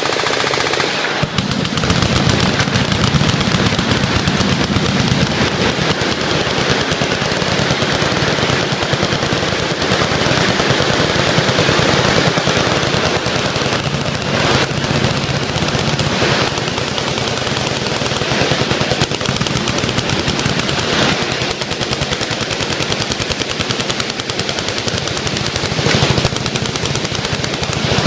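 Many machine guns firing on full auto at once: dense, overlapping automatic gunfire that doesn't let up, with a few louder reports standing out above it.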